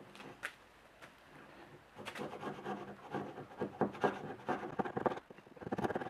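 A steel chisel paring and chipping a wooden coffee-pot handle held on a plywood board. There is a light knock about half a second in, then from about two seconds a quick run of rough scraping cuts.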